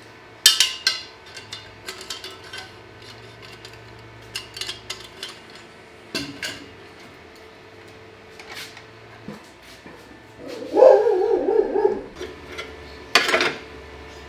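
Metal clinks and knocks of tools and metal parts being handled in a garage, with a short wavering pitched squeal or whine about eleven seconds in.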